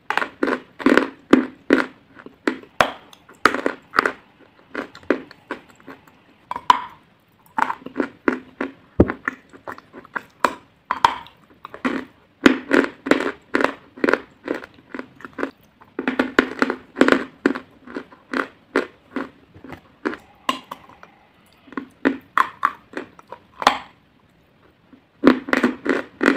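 Close-up crunching and chewing of a stick of white chalk. The bites come in runs of sharp crunches, several a second, broken by a couple of short pauses.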